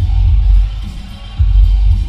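Loud dance music with a heavy, pulsing bass beat; the beat drops back about two-thirds of a second in and returns in full about a second and a half in.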